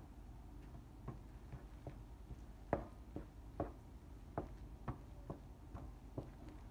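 A wooden spoon mixing mashed potato and shredded cheese in a nonstick frying pan, giving a dozen or so quiet, irregular taps and clicks as the spoon knocks and scrapes against the pan.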